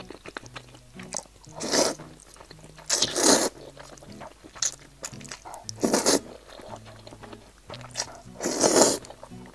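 Four loud slurps of sauce-coated instant noodles, with wet chewing and smacking clicks between them.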